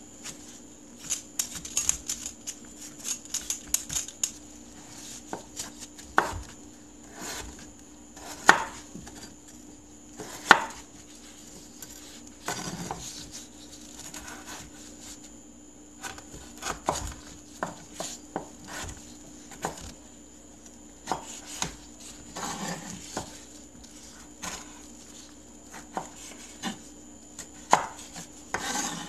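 Chef's knife cutting potatoes and tomatoes on a wooden cutting board: irregular knocks of the blade through the vegetable onto the wood, a few of them louder. Early on, a vegetable peeler scrapes the skin off a potato.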